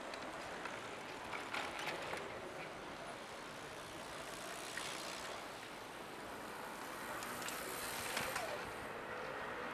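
Urban road traffic ambience: a steady hum of traffic with vehicles passing and a few brief clicks and knocks. Near the end an engine-like tone falls in pitch and then holds steady.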